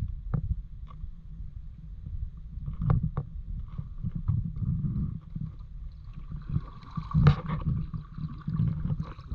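Kayak being paddled: paddle strokes splashing and water sloshing against the hull under a low rumble, with scattered knocks. The loudest is a sharp knock about seven seconds in.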